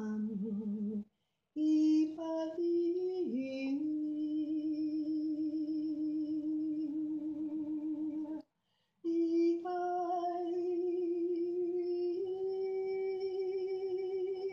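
A woman singing long, wordless held notes with a wavering vibrato, each sustained for several seconds, with two short breaks for breath. The pitch steps up slightly a couple of seconds before the end.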